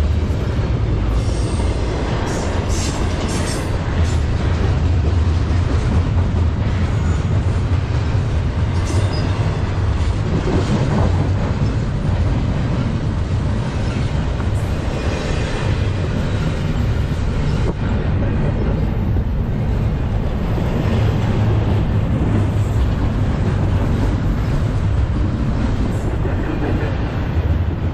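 CSX intermodal freight train of double-stacked container well cars rolling past close by: a steady heavy rumble of steel wheels on rail, with brief high-pitched wheel squeals now and then.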